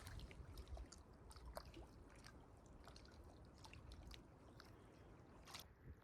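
Faint outdoor ambience: a low rumble with scattered small ticks and clicks, and one sharper click near the end.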